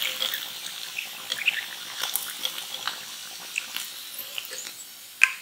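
Hot oil sizzling with scattered small crackling pops as fried potato balls are lifted out of it on a wire skimmer, the hiss dying down gradually; one sharp tap near the end.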